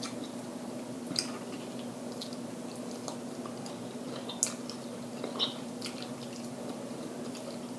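Faint chewing, with a few scattered wet mouth clicks, over a steady low hum.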